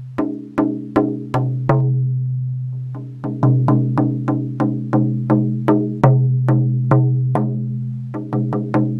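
Hand drum with a whitetail deerskin head struck with a beater in a steady beat of about three strokes a second. Each stroke rings with a deep tone that dies away. There is a pause of about a second after the first few strokes.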